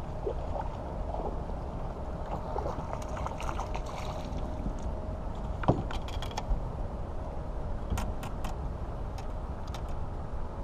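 Steady low wind rumble on the microphone. Several sharp clicks and knocks come about halfway through and again a couple of seconds later, as a small bass is swung aboard an aluminium boat and handled.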